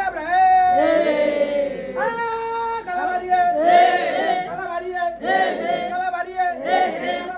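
A woman singing a Kalabari traditional chant in long, held notes.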